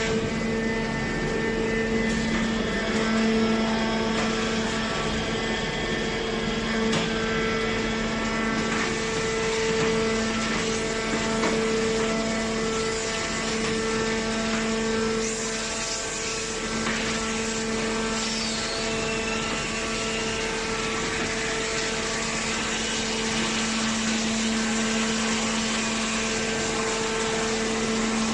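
Metal baler's hydraulic power unit running, a steady hum with a constant whining tone from the pump and motor.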